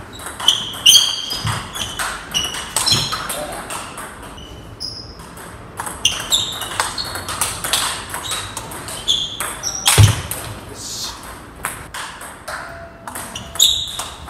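Table tennis rallies: a celluloid ball is struck back and forth by rackets and bounces on the table, making a run of sharp, ringing pings and clicks at an uneven pace, with breaks between points.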